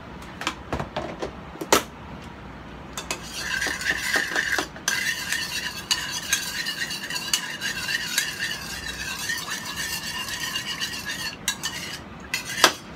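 Spoon stirring sugar into a liquid marinade in a ceramic bowl. A few clinks at first, then a continuous scraping stir with a wavering ring from about three seconds in until near the end, and a sharp clink of spoon on bowl just before the end.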